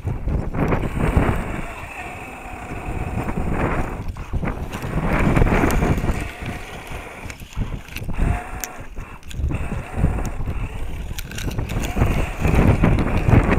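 Electric motor and gears of a radio-controlled scale crawler truck whirring in starts and stops as it climbs a steep sandy bank, mixed with wind buffeting the microphone.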